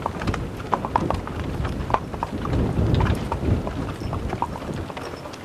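Hoofbeats of a pair of Hucul horses pulling a wagon on wet asphalt, an irregular run of clopping clicks, with a low rumble swelling about two and a half seconds in and fading a second later.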